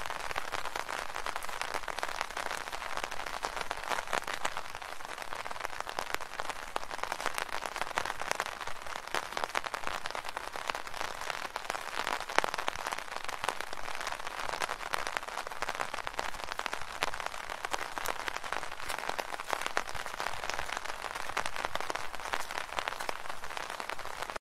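Steady rain falling on an umbrella canopy: a dense, even spatter of many small drop taps.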